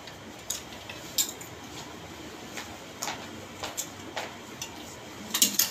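Clothes hangers clicking and clacking against a metal clothing rack as garments are slid along the rail and lifted off: scattered sharp clicks, with a quick cluster near the end.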